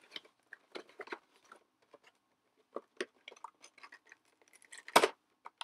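Plastic toy packaging and action-figure pieces being handled: scattered crinkles and clicks, with one louder crackle near the end.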